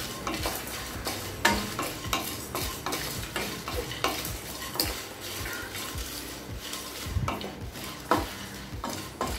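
A spatula scrapes and stirs peanuts, chana dal, dried red chillies and whole spices roasting in an aluminium kadai. There are irregular scraping strokes over a steady hiss.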